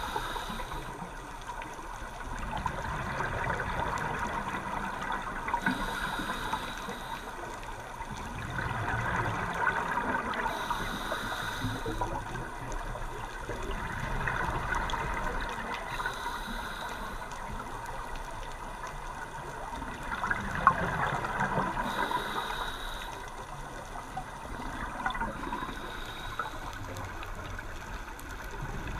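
Scuba diver's regulator breathing underwater: a hiss on each inhale about every five seconds, with bubbling gurgles on the exhales between.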